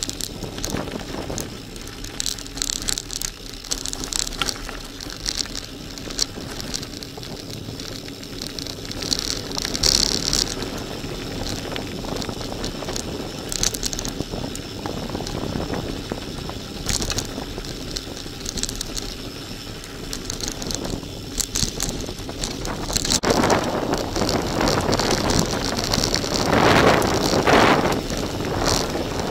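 Gravel bike rolling over a loose, stony gravel track: tyres crunching on the stones, with frequent clicks and rattles from the bike. Wind noise on the microphone grows louder in the last six seconds or so.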